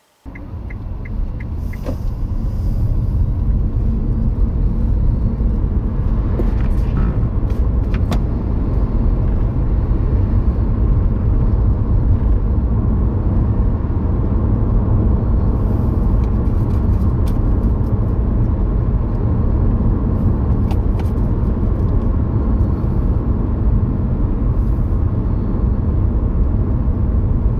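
A car driving along a road, heard from inside: a steady low engine and tyre rumble that starts suddenly and grows louder over the first three seconds, with a few faint clicks.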